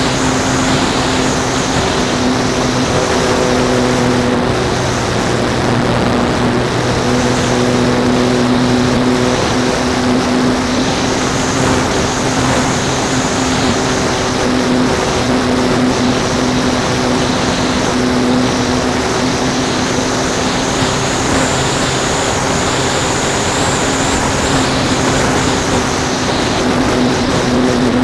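Radio-controlled model airplane's motor and propeller, heard from a camera mounted on the plane in flight: a steady low buzzing tone that breaks off briefly a few times, under heavy wind rush over the microphone.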